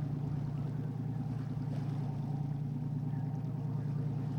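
Motorboat engine running steadily, a low even hum.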